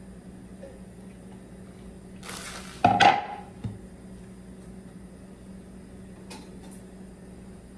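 A wooden cutting board is set down on a granite countertop with a loud knock about three seconds in, just after a brief rustle, followed by a lighter knock. A steady low hum runs underneath.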